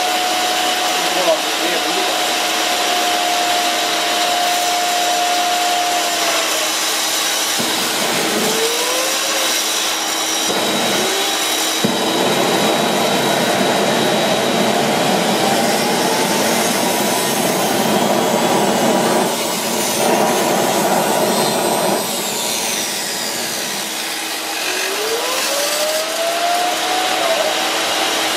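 Homemade LPG-fuelled jet engine built around a vacuum cleaner motor, running with a high whine over a steady rushing roar. The whine's pitch sags about six seconds in, rises again, climbs steadily for several seconds mid-way, then drops and rises once more near the end. These are spool-ups that come close to, but do not reach, self-sustained running.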